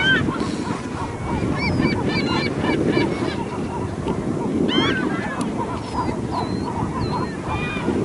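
A large flock of water birds calling at once: a dense, continuous din of overlapping calls, with many short, sharp higher calls over it, most crowded about five seconds in.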